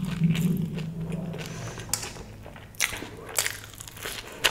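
Close-miked eating: a person chewing and crunching food, with three sharp crunches in the second half.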